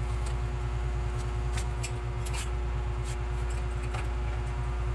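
A steady low machine hum with a faint steady tone above it, and a few light clicks scattered through it.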